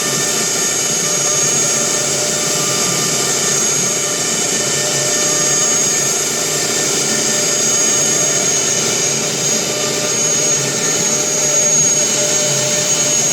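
CNC router running steadily: a constant mechanical noise with a high, unchanging spindle whine over it.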